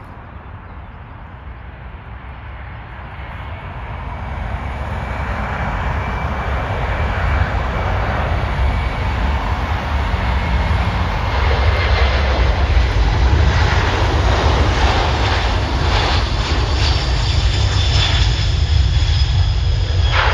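Boeing C-17 Globemaster III on landing approach, its four Pratt & Whitney F117 turbofans running with a steady whine over a deep rumble. It grows louder over the first twelve seconds as the jet comes in low and passes, then stays loud.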